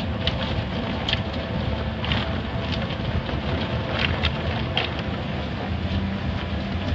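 Automatic car wash heard from inside the car: water spraying and streaming over the windows and body, a steady rushing with scattered sharper splashes.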